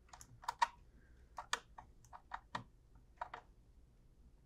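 Small screwdriver tightening a screw terminal on a Zooz ZEN16 relay's terminal block to clamp a wire: faint, irregular light clicks of the blade working the screw.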